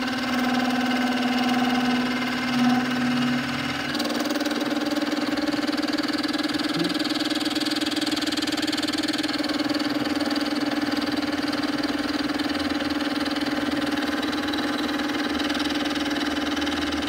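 Milling machine cutting a dovetail in a metal block: the spindle motor gives a steady hum over the noise of the cutter chewing through metal. The hum steps up slightly in pitch about four seconds in.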